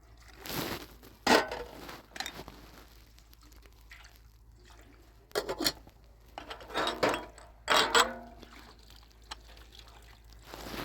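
Dishes and pots knocking and clinking against each other in a few separate clatters, some ringing briefly, with a little splashing water.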